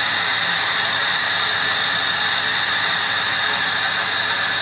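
Metal lathe taking a heavy roughing cut in 316 stainless steel hollow bar, the tool cutting inside the bore at an aggressive feed. The cut makes a loud, steady noise with a high, even whine in it.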